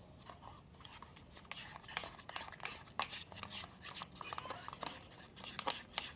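Slime being stirred and worked by hand, giving irregular sticky clicks and crackles that come thicker after the first second and a half.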